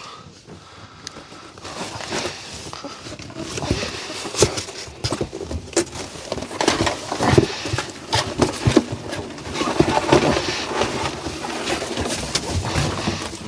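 Laying hens squawking and clucking while being handled into a chicken coop, with many short knocks and scuffles throughout.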